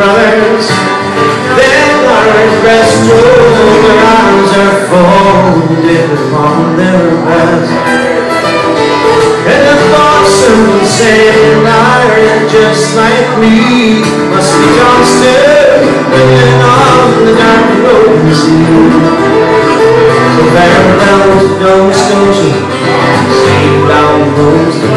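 Live acoustic folk band playing an instrumental break: fiddle carrying the melody over strummed acoustic guitars and keyboard chords.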